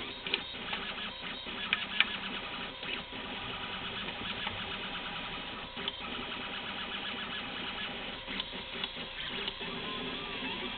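RepRap Prusa Mendel 3D printer's stepper motors buzzing and whining in quick, changing runs as the print head and belt drive move during a print, with scattered sharp ticks.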